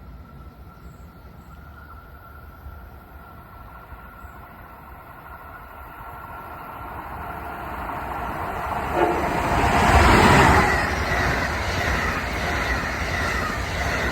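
A train approaching and passing on the tracks, building from a low rumble to a loud rush of wheels on rail about ten seconds in and staying loud to the end.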